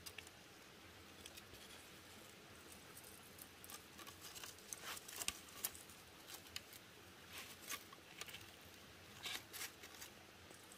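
Faint, irregular crackling of a small wood fire as the kindling catches, with clusters of sharper pops about halfway through and again near the end.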